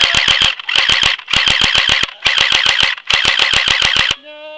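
Rapid bursts of automatic gunfire from an airsoft gun, about five bursts of fast, evenly spaced shots. Near the end the firing stops and a drawn-out cry begins.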